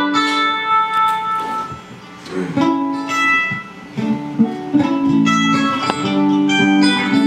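Electric guitar, mandolin and electric bass playing loose plucked notes and chords, with two short lulls in the playing.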